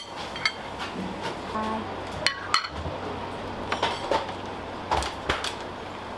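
Busy kitchen clatter: metal utensils and dishes clinking and knocking at irregular intervals over a steady background hiss, with two sharp ringing clinks about two and a half seconds in.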